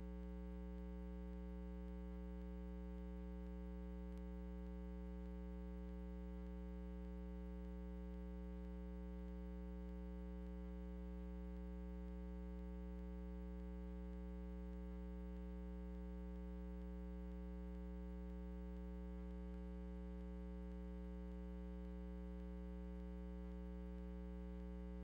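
Steady low electrical mains hum with a stack of overtones, unchanging throughout, and no other sound.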